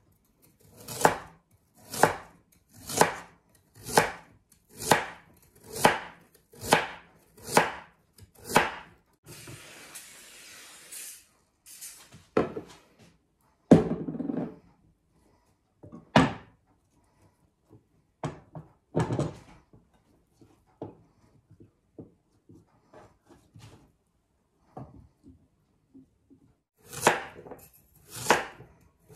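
Chef's knife slicing through raw sweet potato onto a wooden cutting board, a sharp chop about once a second. Midway the chopping stops for a brief hiss, then scattered knocks and one loud clunk, before the steady slicing resumes near the end.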